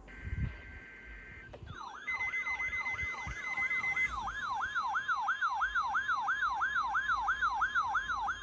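A short burst of SAME digital header tones, a screechy two-tone data signal, then, from about two seconds in, an electronic alert siren with quick rising sweeps, about three a second. It is the alarm set off by a NOAA Weather Radio Required Weekly Test.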